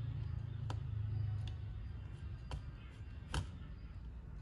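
Four sharp little clicks of small parts being handled inside an opened laptop during the SSD fitting, the last the loudest, over a low steady hum.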